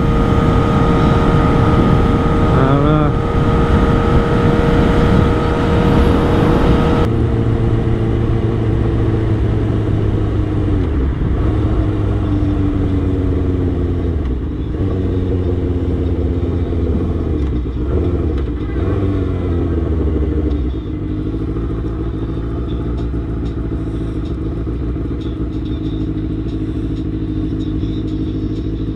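Sportbike engine with wind rush, cruising steadily at highway speed. From about a quarter of the way in, the engine pitch falls in several steps as the bike slows. It then settles into a lower, steady run.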